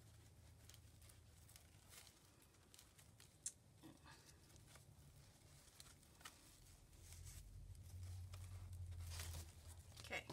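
Near silence: faint low room hum with a few light clicks and rustles scattered through it; the hum swells a little about two-thirds of the way in.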